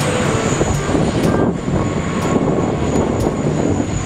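Four-engined Airbus A380 jet airliner taking off: a steady, loud engine roar with a thin high whine running through it.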